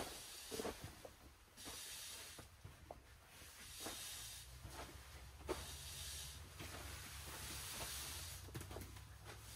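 Footsteps and shuffling on the crinkly plastic floor of an inflatable tent, with nylon fabric rustling, in uneven swishes about once a second and a few small knocks.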